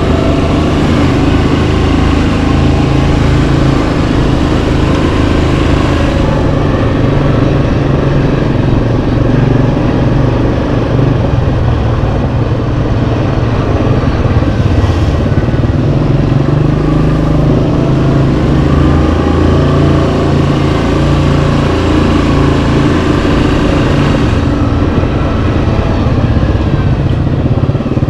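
Yamaha Kodiak 700 ATV's single-cylinder four-stroke engine running under way on a trail, its note shifting a little up and down with the throttle.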